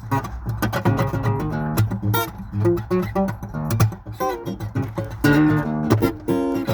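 Guitar played live in a funk style: rhythmic, choppy strummed chords mixed with plucked single notes.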